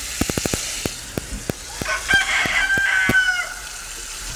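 A rooster crowing once, a call of about a second and a half starting about two seconds in. Under it, a steady hiss and sharp clicking from a faulty microphone, in a quick run in the first half-second and scattered after.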